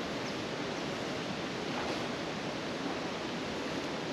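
Steady rush of flowing river water, an even hiss with nothing standing out.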